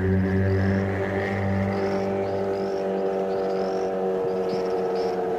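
Benchtop table saw running, a steady motor hum made of several tones at once; its lowest tone drops away about two and a half seconds in, and short high chirps recur above the hum.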